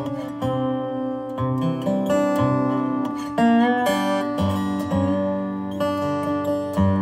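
Resonator guitar played lap-style with a steel bar and fingerpicks: a run of plucked notes, some of them sliding up or down in pitch.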